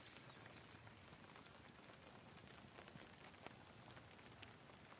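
Near silence: faint outdoor ambience with a few soft ticks, the clearest about three and a half seconds in.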